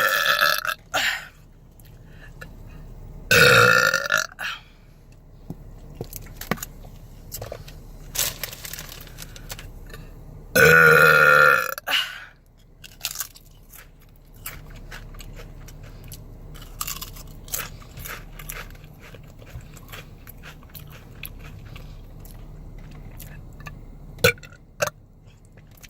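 A woman belching loudly: a burst right at the start, a short burp about three seconds in and a longer, drawn-out burp about eleven seconds in. Between them come many small sharp crunches of chips being bitten and chewed.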